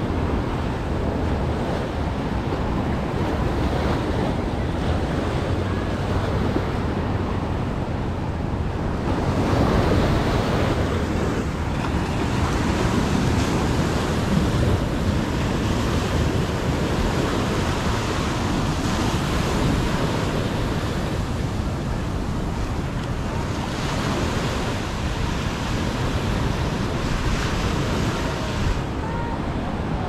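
Ocean surf breaking and washing up a sandy beach, a continuous rushing wash that swells louder about ten seconds in and again late on, with wind rumbling on the microphone.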